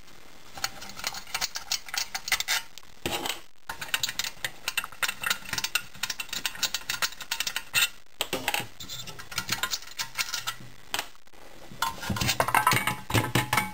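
Screwdriver backing small screws out of a plastic water-heater housing: a run of quick, irregular clicks and light metal ticks, with heavier knocking and handling of the plastic parts near the end.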